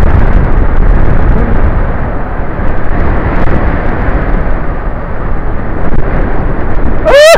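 Wind rushing and buffeting over a helmet-mounted camera's microphone on a moving motorcycle, a loud low rumble with no clear engine note, easing a little in the middle.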